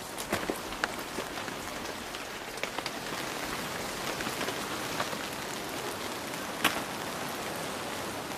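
Steady hiss of rain with scattered sharp ticks of drops.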